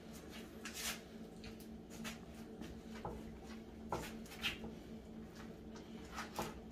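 Hands rubbing and smoothing paste over a foam taxidermy deer form: soft, irregular rustles and scrapes, a few standing out a little louder, over a steady low hum.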